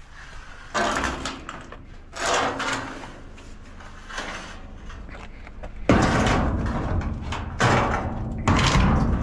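Sheet steel being handled and moved: a series of metallic scraping and clattering noises, becoming louder and more continuous about six seconds in.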